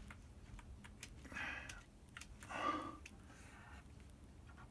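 Scattered light clicks and taps of computer keyboard keys, used to toggle through animation drawings. Two soft breathy swishes come about a second and a half and nearly three seconds in, the second the louder.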